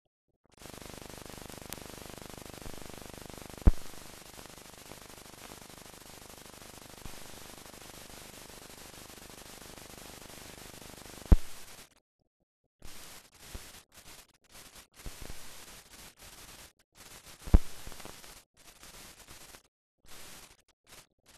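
Steady hiss of an old silent film's blank soundtrack, with a few sharp pops. About halfway through it cuts out and then comes back only in short broken patches, with dead silence between them.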